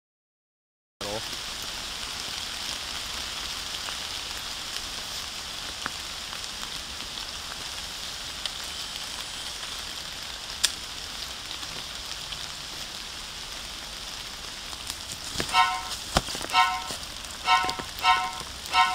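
Steady outdoor hiss in woodland. From about three-quarters of the way in, a run of short high chirps, several in pairs, comes in with a few sharp clicks.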